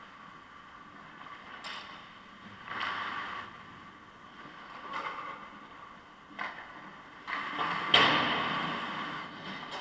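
Ice hockey skate blades scraping the ice in short bursts, with a sharp knock about eight seconds in, the loudest sound, that echoes through the rink.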